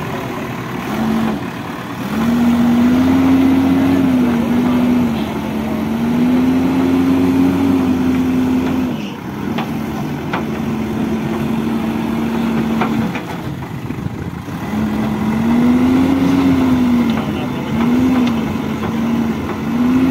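JCB 4DX backhoe loader's diesel engine running close by, its pitch rising and settling back about five times as the machine works its hydraulic arms in the mud. There are a few short metallic clanks about halfway through.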